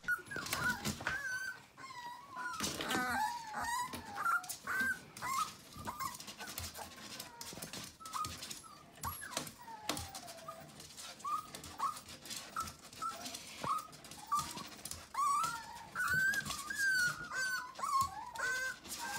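A puppy whimpering and whining in short, high, wavering cries, one after another, with light clicks between them.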